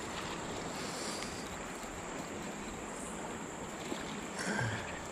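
Steady rush of flowing shallow creek water, with a faint steady high tone behind it.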